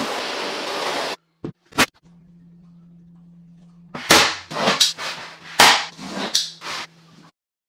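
A vacuum cleaner running on a bare floor cuts off about a second in. About four seconds in comes a quick series of sharp knocks and clicks as click-lock vinyl floor planks are pressed and tapped into place.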